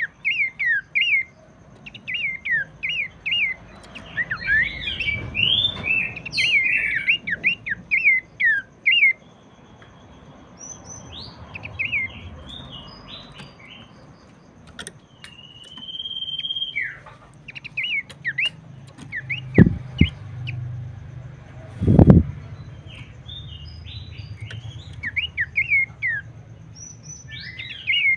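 Pelanduk semak (a babbler) singing: bursts of quick, falling chirps repeated in runs, with scattered single notes and one longer held whistle in the middle. Two dull thumps come near the middle-end, the second being the loudest sound.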